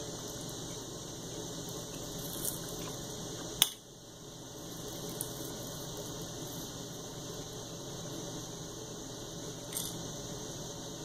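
Metal knife and fork cutting food on a paper plate, with a few light cutlery clicks, the sharpest about three and a half seconds in, over a steady room hum.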